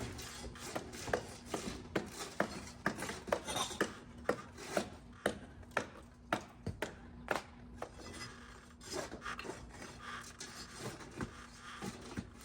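Hand tool scraping and prying at nailed composition roof shingles: rubbing and rasping with irregular sharp clicks and knocks, about two a second in the first half and sparser later.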